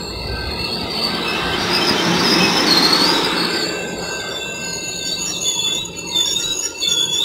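Amtrak Pacific Surfliner bi-level passenger cars rolling past, with a steady rumble and a high-pitched squeal from the wheels that wavers up and down. The sound is loudest about halfway through.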